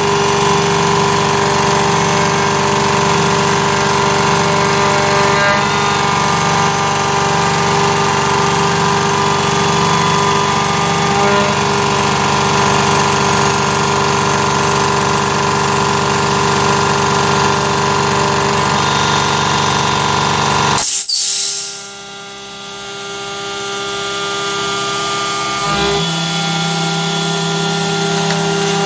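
Carvera Air desktop CNC mill cutting metal with an end mill: a steady whine with several tones from the spindle and the cut. About 21 seconds in, the sound drops sharply, then builds back up over the next few seconds.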